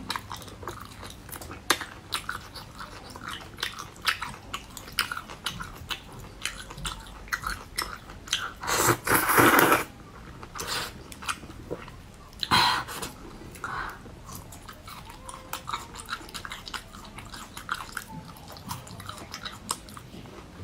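Close-miked eating: a person chewing and biting food, with many small moist clicks and crunches. A louder rush of noise lasts about a second around nine seconds in, and a sharper burst follows a few seconds later.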